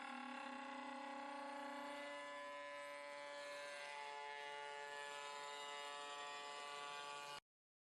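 Spindle of a 5-axis CNC wood milling machine whining steadily as it cuts a curve in a door, its pitch shifting slightly a couple of times. The sound cuts off abruptly near the end.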